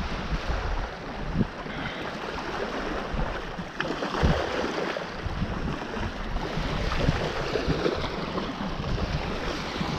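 Small waves washing onto the sand in a steady hiss, with wind buffeting the microphone in uneven low gusts.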